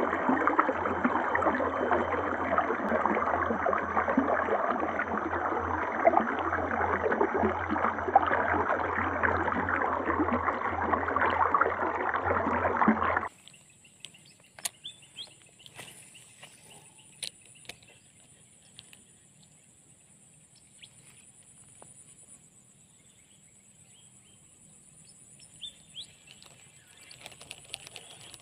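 Stream water rushing over a small ledge in a steady splashing flow, which cuts off suddenly about thirteen seconds in. What follows is much quieter: a thin steady high-pitched hum with a few small clicks, as a fishing rod and spinning reel are handled.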